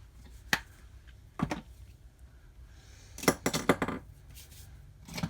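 Makeup products and tools being handled: a few sharp clicks, then a quick cluster of clicks and clatters, as small hard plastic items such as compacts and brushes are picked up, opened and set down.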